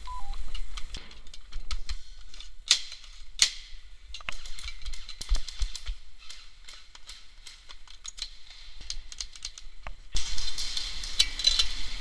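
Scattered sharp clicks and snaps of airsoft guns, some coming in quick runs. About ten seconds in, a louder rustling noise sets in.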